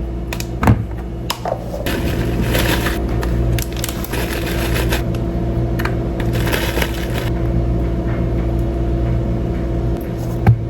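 Kitchen prep sounds: utensils and containers clicking and knocking against bowls, with three short stretches of scraping or stirring, over a steady low hum.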